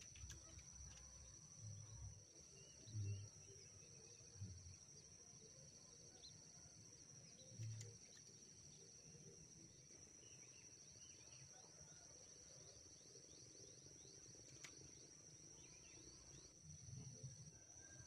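Faint, steady high-pitched insect chirring in grassland, with a few soft low thumps scattered through it.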